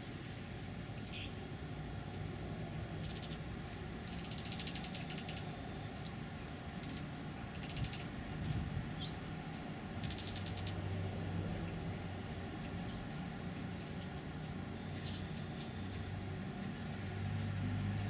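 Oregon dark-eyed juncos calling: many short, high, thin chip notes, some sliding downward, with several brief fast trills. A low steady hum runs underneath and grows louder near the end.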